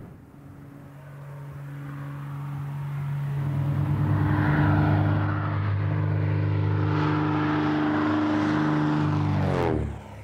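Light propeller airplane's piston engine running, growing louder over the first few seconds and then holding steady, cut off abruptly near the end.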